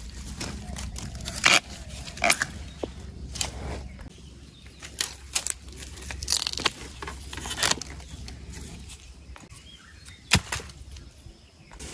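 Irregular rustling and crackling of leaves and twigs in forest undergrowth, with several sharper snaps, including a loud one near the end.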